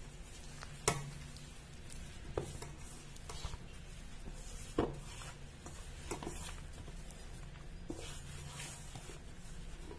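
Hand mixing and kneading soft maida dough in a stainless steel bowl: quiet squishing with a few light knocks against the bowl, over a low steady hum.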